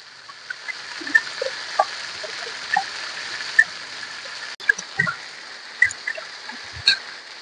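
Chicken drumsticks frying in oil in a pan: a steady sizzle with scattered pops and crackles, and a couple of soft knocks near the end.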